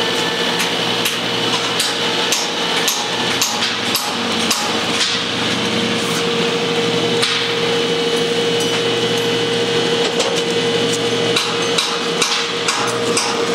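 Construction-site noise: a steady machinery hum, with sharp hammer-like knocks at irregular intervals, often one or two a second.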